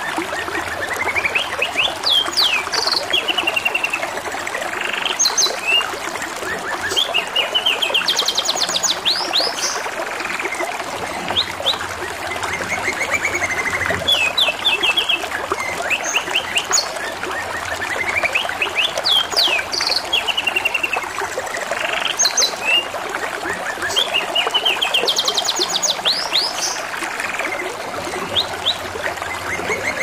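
Domestic canary singing continuously in rapid trills and chirped phrases, over a steady trickle of running water.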